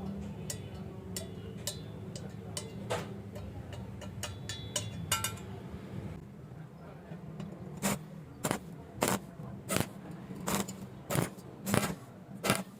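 Light metallic clinks and scraping over a low steady hum, then, from about eight seconds in, a steady run of sharp metal taps, about one and a half a second.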